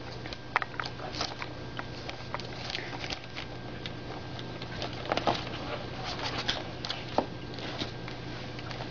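Two pug puppies playing and scrabbling on a blanket: scattered soft pattering and scuffling of paws and bodies, with a steady low hum underneath.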